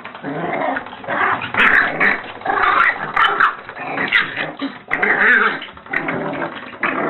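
A dog vocalizing in a run of loud, drawn-out calls, one after another with short breaks between them.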